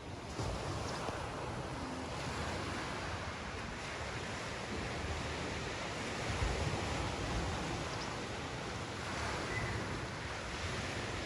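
A steady rushing noise that rises and falls slightly.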